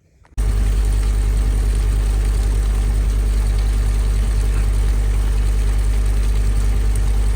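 A vehicle engine idling steadily with a strong low hum, cutting in abruptly about half a second in.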